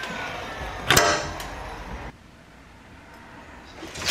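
A DeWalt cordless nailer fires a nail into an MDF window jamb with one sharp shot about a second in. Just before it, a faint falling whine of the nailer's motor winding down fades out.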